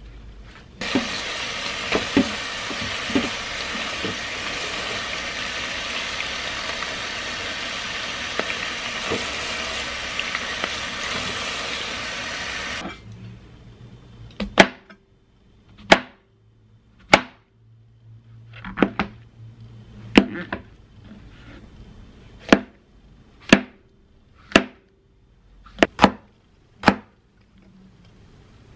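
A steady rushing hiss starts suddenly about a second in and cuts off abruptly after about twelve seconds. Then a kitchen knife cuts brown mushrooms and serrano peppers on a plastic cutting board: about ten sharp single chops, roughly a second apart.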